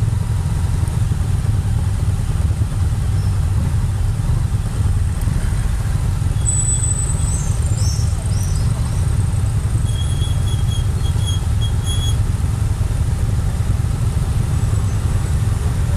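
Adventure motorcycle engine idling with a steady low rumble. Faint high chirps come in around six to eight seconds in, and a short run of high beeps around ten seconds in.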